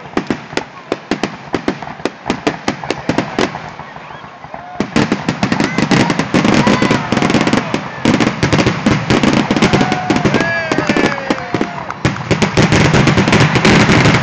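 Fireworks and firecrackers going off in a rapid run of sharp pops and bangs, thickening into a denser, louder barrage about five seconds in.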